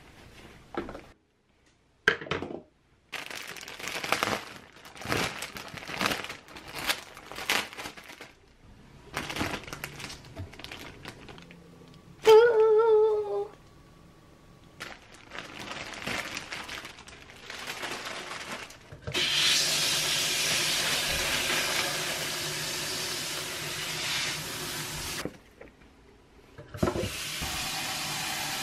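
Plastic produce bag crinkling and rustling as a bundle of minari is unwrapped and handled. About halfway through comes a brief, loud, high tone with a wobbling pitch. Later a kitchen tap runs steadily for several seconds, filling a bowl with water for soaking, and starts running again near the end.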